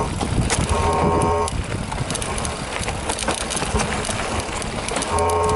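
Mountain bike ridden over rocky singletrack: rattling, knocks and clicks of the bike over rocks and roots, with wind and tyre noise on a helmet-mounted camera. A buzzing tone comes in briefly about a second in and again near the end.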